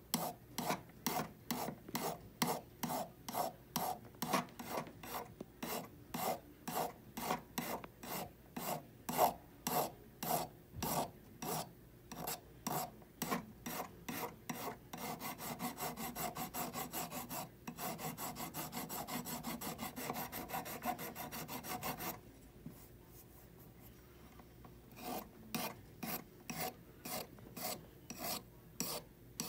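Flat hand file rasping across a hollow 14kt gold bangle in steady back-and-forth strokes, about two a second. Past the middle the strokes turn short and rapid for several seconds, then stop for a few seconds before the steady strokes resume near the end.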